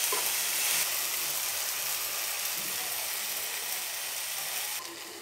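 Onions and tomatoes frying in oil in a pan, a steady sizzle that drops abruptly to a softer hiss near the end.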